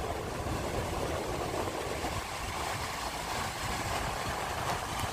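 Surf breaking and washing over shore rocks in a steady rush, with wind buffeting the microphone as a low rumble.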